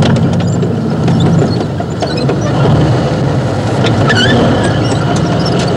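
T-34 tank's engine running steadily at low speed, with clicking and clanking from the tracks and running gear as the tank creeps forward.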